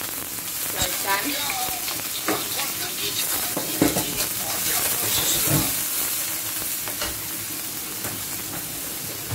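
Small fish and garlic frying in hot oil in a stainless-steel wok: a steady sizzle, with a metal ladle stirring and scraping the pan. The ladle knocks on the wok a few times, most sharply a little under four seconds in.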